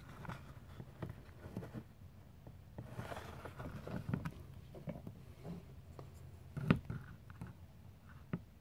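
Handling noise from a plastic electronic gold tester and a plaster dental model carrying a gold grill being picked up and moved about: scattered light taps, clicks and rustles, with one sharper knock about two-thirds of the way in. A faint low hum runs underneath.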